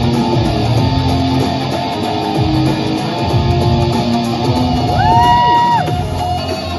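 Solo guitar playing a slow melodic line of sustained notes. About five seconds in, one note is bent up, held and let back down.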